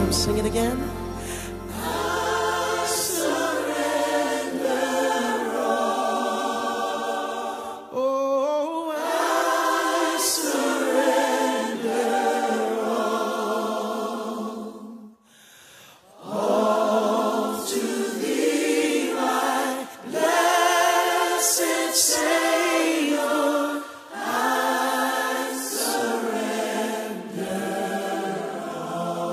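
A choir singing in sustained phrases. The singing breaks off briefly about halfway, then starts again.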